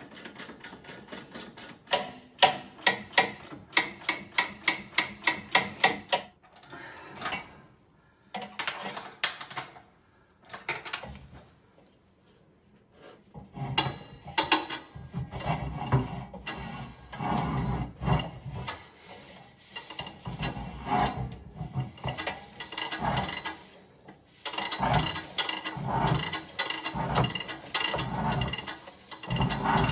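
Ratchet clicking and metal rubbing during work on the hose reel's mounting: a run of sharp, rapid clicks, about three a second, a couple of seconds in, then after a pause a long stretch of repeated scraping and clicking strokes.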